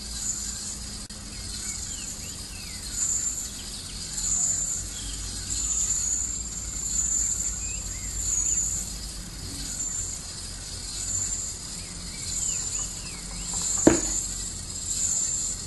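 High-pitched insect chirring that swells and fades in pulses roughly every second and a half, over a low steady hum. A single sharp click comes near the end.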